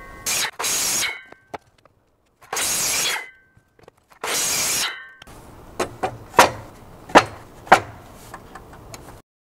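Cut wooden blocks being handled at a mitre saw: three short, loud scraping bursts of wood, then a run of sharp wooden knocks as the blocks are stacked on one another, ending abruptly.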